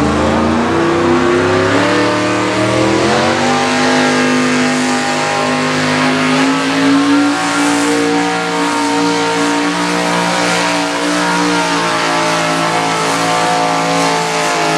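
Econo Mini Modified pulling tractor's engine running at high revs under load as it drags the weight-transfer sled. The pitch climbs over the first few seconds, then holds high and steady.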